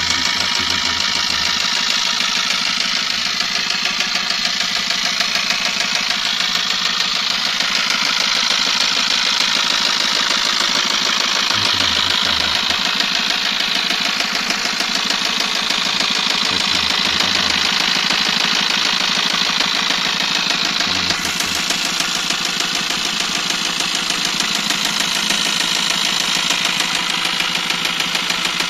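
Eicher truck diesel engine running at idle with a steady knocking clatter, a noise the owner traces to the pistons, along with blow-by from the engine.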